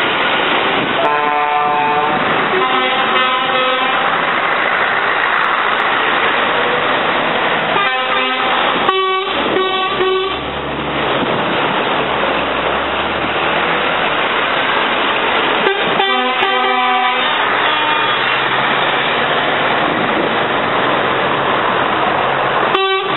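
Scania trucks driving past with their diesel engines running, sounding air horns in groups of short toots: near the start, about eight seconds in, about sixteen seconds in, and briefly once more near the end.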